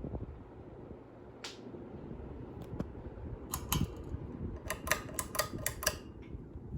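A run of sharp clicks in two quick clusters, about three and a half and five seconds in, over the steady low hum of a running ceiling fan.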